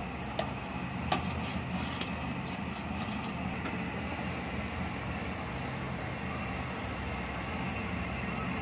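A plastic ladle clicking a few times against an aluminium cooking pot, the sharpest click about a second in, then the aluminium lid set on the pot. A steady mechanical hum runs underneath.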